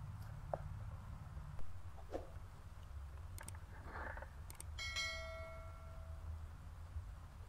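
Subscribe-button animation sound effects: a couple of sharp mouse clicks, then a bell ding that rings for about a second and a half, over a low steady outdoor rumble.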